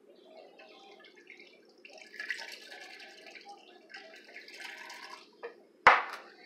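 Squirt grapefruit soda poured from a can into a clay jarrito, with a fizzing pour. Near the end comes a single sharp knock as the can is set down on the countertop.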